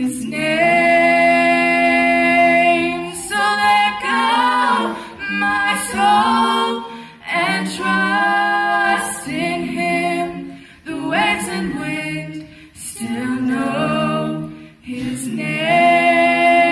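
Mixed a cappella vocal quartet, one male and three female voices, singing in harmony through handheld microphones. The chords are held in phrases of a second or more, with short breaks and sung consonants between them.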